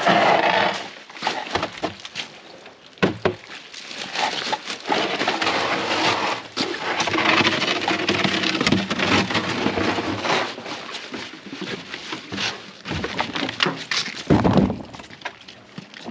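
Plywood panels being lifted, dragged and set down, with repeated hollow wooden knocks and scrapes.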